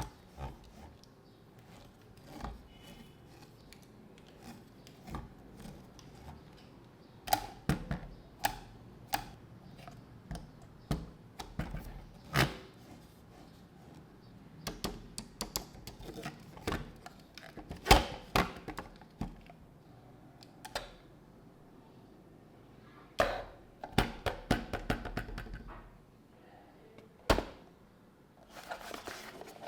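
Irregular clicks, taps and knocks from handling the small plastic mini fan and its packaging, some in quick clusters, with a brief rustle near the end.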